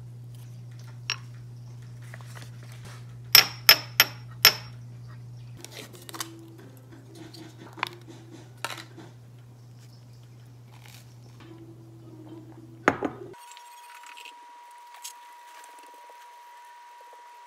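Tableware handled while preparing buttered toast: four quick ringing clinks of a ceramic dish and cutlery about three and a half seconds in, then softer taps and scrapes and one sharp knock past the middle, over a low steady hum.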